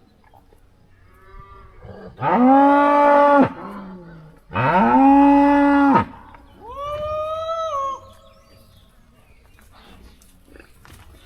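Cows mooing: a faint call, then two loud, long moos, then a higher-pitched, quieter moo.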